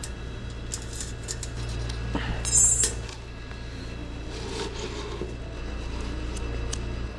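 Scattered light clicks and clinks of small hard objects being handled, with one louder, brief noisy sound about two and a half seconds in, over a steady low hum.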